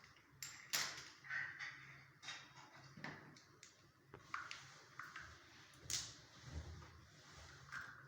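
Scattered light clicks and knocks, a sharper one about a second in and another about six seconds in.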